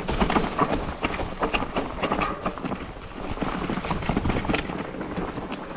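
Mountain bike rolling down a trail covered in dry fallen leaves and stones: tyres crunching through the leaves, with a dense, irregular patter of small knocks and rattles from the bike.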